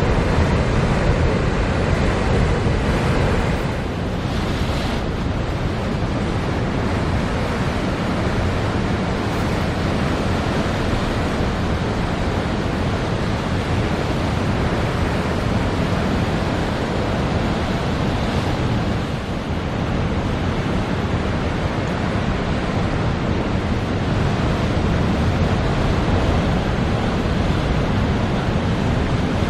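Rough sea surf breaking continuously, whipped up by strong winter wind, with wind rumbling on the microphone.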